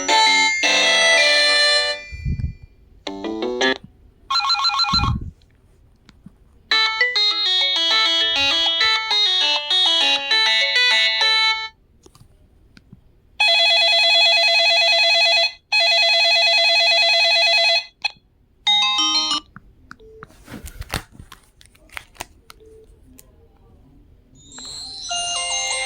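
Samsung SGH-X507 mobile phone playing its ringtones one after another: short electronic melodies, then a steady ringing tone in two bursts of about two seconds each, with brief gaps and a few clicks between tones and a new ringtone starting near the end.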